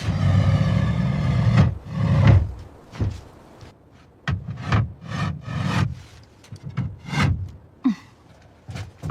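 Wood being worked by hand: a rasping rub for about a second and a half, then a run of short scraping strokes, roughly two a second, with brief pauses.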